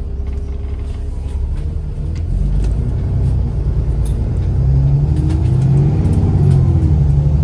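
ADL Enviro 400 MMC double-decker bus with a ZF automatic gearbox under way: a low engine and driveline rumble that grows louder from about two seconds in, as the bus pulls away, with a whine from the drivetrain rising and falling near the end.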